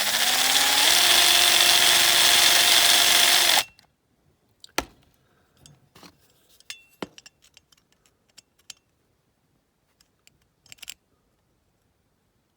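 Electric drill drilling out the rivet that holds a die-cast toy car's front grille: the motor winds up in pitch, runs steadily, then cuts off suddenly after about three and a half seconds. Light clicks and taps follow as the part is handled.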